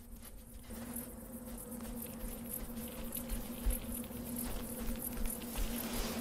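Soft scratching and trickling of sand as a web-footed gecko digs its burrow with its feet, over a steady low hum.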